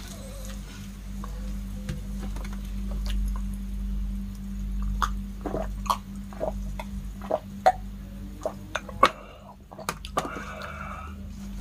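Fizzy soft drink poured from a plastic bottle into a glass mug and fizzing, then a run of short gulps and swallows as it is drunk.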